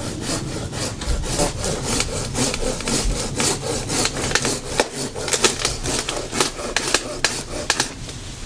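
Handsaw cutting through a walnut branch: steady back-and-forth strokes, about three a second, each a dry rasp through the wood.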